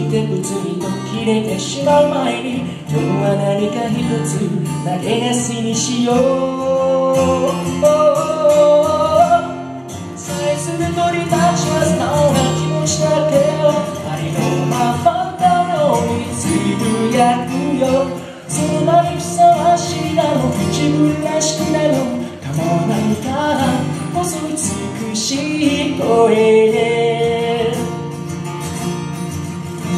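A man singing a song live into a microphone, accompanied by an acoustic guitar.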